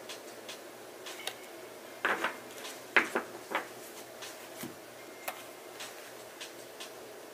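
Tarot cards and deck handled on a cloth-covered table: a scattering of light taps and knocks, loudest in a cluster about two to three and a half seconds in, then fainter ticks.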